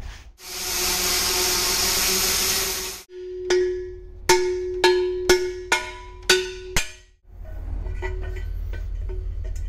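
A cutting torch hisses steadily for about two and a half seconds, cutting a round hole through a rectangular steel tube. This is followed by about six sharp hammer blows, each ringing on the steel, as the transmission input shaft is knocked into the hole.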